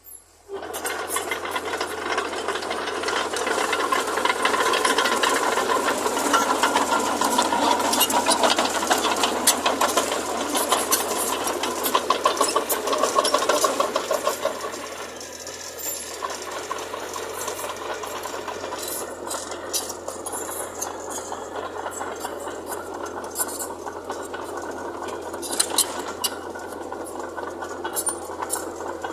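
Heavy earthmoving machinery running, a diesel engine under a dense metallic rattling and clattering. It is loudest through the first half and eases off somewhat about halfway through.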